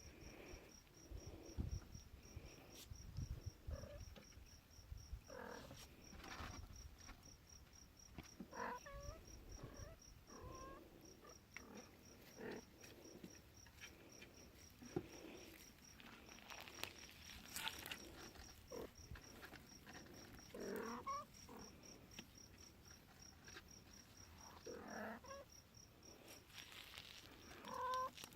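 Young kittens, about five weeks old, mewing faintly several times in short high calls, over a steady, rapid high-pitched chirping.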